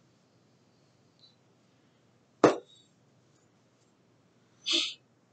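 One sharp click about halfway through, with a brief ring after it, as small makeup items are handled, then a short puff of breath near the end.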